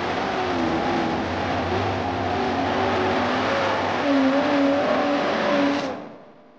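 Rock bouncer buggy's engine revving hard as it climbs a dirt hill, its pitch rising and falling with the throttle; the sound cuts off suddenly near the end.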